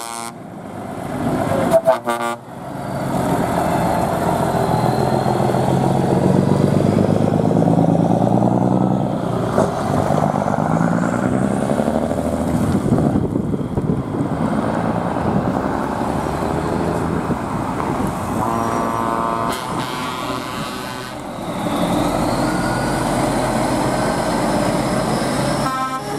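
Heavy lorries with open exhaust pipes driving past one after another, their diesel engines loud as they pull away. A horn sounds for a couple of seconds about three quarters of the way through.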